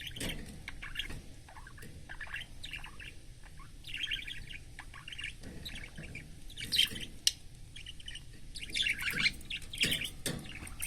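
Budgerigar chirping and chattering in a string of short, high chirps, with a louder burst of chatter about two-thirds of the way through.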